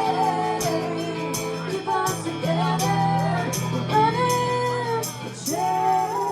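Live rock band playing, with voices singing long held notes over drums and regular cymbal hits.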